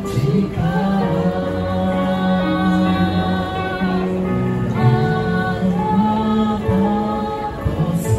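A man and a woman singing a Christian song to an electronic keyboard, amplified through a small portable speaker, with long held notes.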